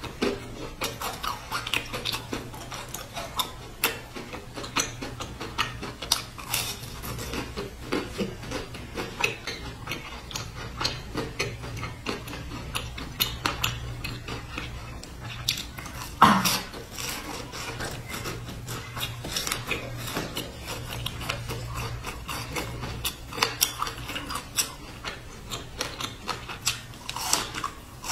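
Close-miked eating of crisp biscuit sandwiches with a dark rice filling: many small crunches and wet mouth clicks from biting and chewing, with one louder crunch about sixteen seconds in, over a faint steady low hum.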